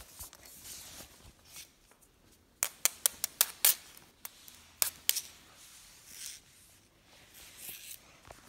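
Handling noise close to the microphone: clusters of sharp clicks as pens are picked up and knocked together, the main run about three seconds in and a few more near the middle, with soft rubbing and rustling between them.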